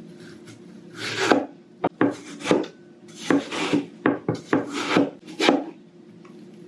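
Fresh tomato being cut with a knife on a wooden chopping board: about ten short, scraping strokes, irregularly spaced, starting about a second in.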